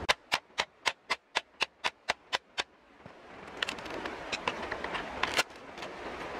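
A knife knocking sharply on a bamboo pole about ten times, roughly four a second. Then the bamboo crackles and cracks as the blade splits it lengthwise, with one loud crack near the end.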